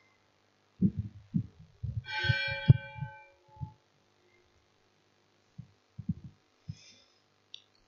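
Dull low thumps in two irregular clusters, the first about a second in and the second near six seconds, with a single chime struck about two seconds in that rings for about a second and dies away.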